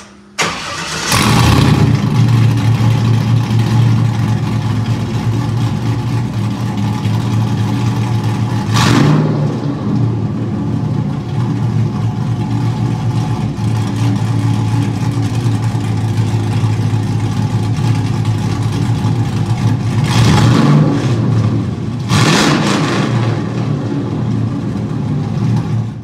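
Cammed 6.0-litre LS V8 running through a muffler-delete exhaust: it is started up about a second in, settles into a loud idle, and is revved three times, once around the middle and twice near the end.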